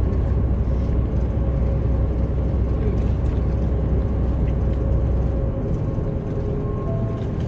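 Steady engine and road drone inside the cab of a diesel semi truck on the move, a deep rumble with a faint steady hum over it. The low rumble shifts about five and a half seconds in.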